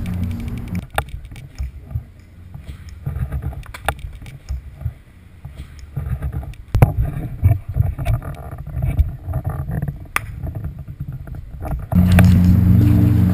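Irregular low rumble of handling noise and wind on the camera's microphone as the camera is swung about, with a few sharp knocks.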